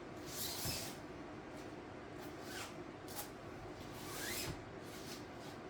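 Faint, intermittent rubbing and scuffing with a few short rising rubber squeaks, from hands and tire spoons working a dirt bike tire and tube on the rim.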